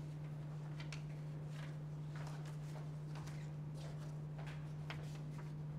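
Quiet room tone dominated by a steady low electrical-sounding hum, with scattered faint soft clicks.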